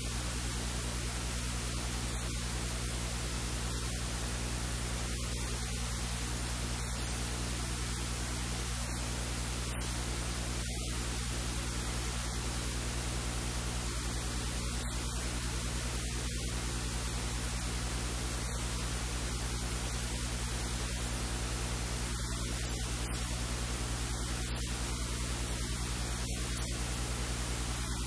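Steady static hiss with a low electrical hum underneath.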